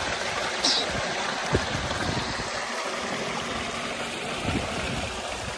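Water gushing steadily from a tubewell's outlet pipe into a concrete tank, with a brief splash near the start.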